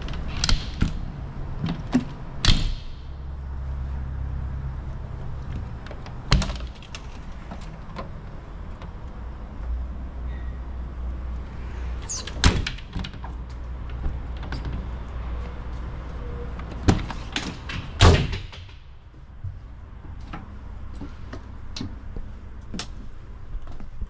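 Fire engine body compartment doors and their metal latches being opened and shut by hand: a series of sharp clacks and knocks, the loudest about 18 seconds in, over a steady low hum that drops after that last knock.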